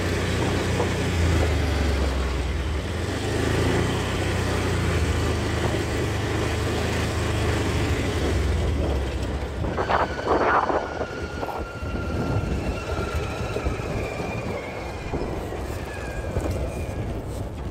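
Small open utility vehicle driving along a dirt and gravel track, its engine running with a low steady hum that falls away about nine seconds in as it comes to a stop. A few knocks follow shortly after.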